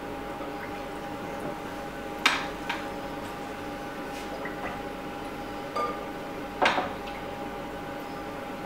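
A metal ladle dipping into a tall metal pot and pouring water into a steel baking tray to make a bain-marie. There are two sharp clanks of ladle against pot, about two seconds in and again about two seconds before the end, with lighter clinks and trickling water between them. A steady kitchen hum runs underneath.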